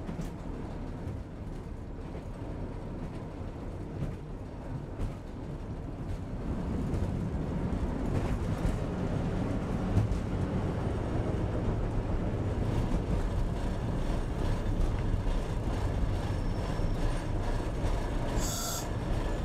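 Ex-SNCF X5852 diesel railcar running, heard from on board: engine and wheels on the track. The sound grows louder about six seconds in as the railcar pulls away under power. A brief high-pitched sound comes near the end.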